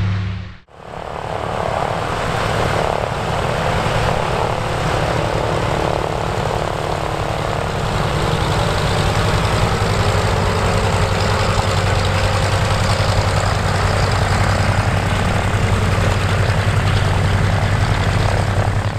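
Twin radial engines of a Douglas DC-3 Dakota running steadily as it taxis, a deep continuous propeller-engine sound. It cuts in after a brief gap about half a second in.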